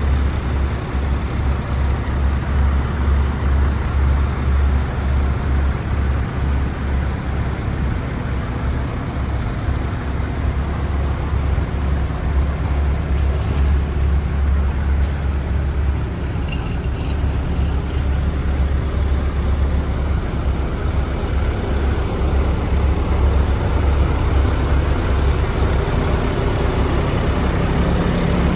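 The engine of a 1989 International 1754 dump truck idling steadily with a deep, even rumble. It grows somewhat louder in the last few seconds.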